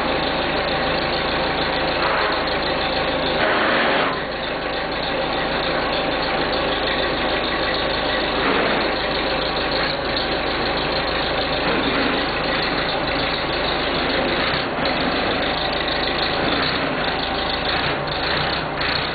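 1976 Massey Ferguson 50D backhoe's diesel engine running steadily after a cold start, swelling briefly louder about three and a half seconds in.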